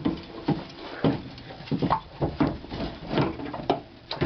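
Irregular knocks, clunks and scrapes of a rear strut assembly (a Monroe quick strut with spring and top mount) being handled and worked up into place in the car.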